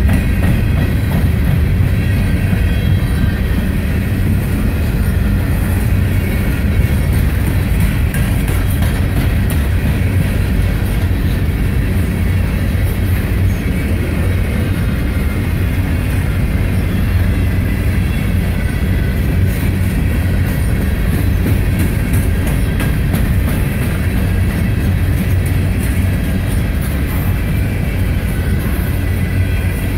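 Coal hopper cars of a long CSX freight train rolling past at close range: a loud, steady sound of steel wheels running on the rails.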